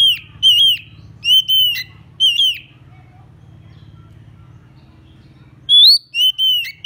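Oriental magpie-robin giving loud, clear whistled notes, each ending in a downward slur. There is a quick run of about five in the first two and a half seconds, a pause, then another run of about four near the end. It is the call the bird makes at a rival, used as a lure for catching magpie-robins.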